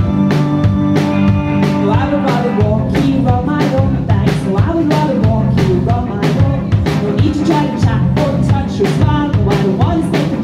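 Live band playing an upbeat rock-and-roll number: drum kit keeping a steady beat under guitars and keyboard, with a voice singing from about two seconds in.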